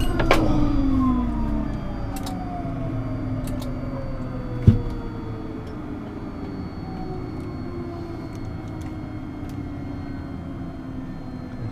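Pilatus PC-12's PT6A turboprop engine spooling down after shutdown: several whining tones fall slowly and steadily in pitch while the low rumble fades. There are a few clicks at the start and a single sharp thump about halfway through.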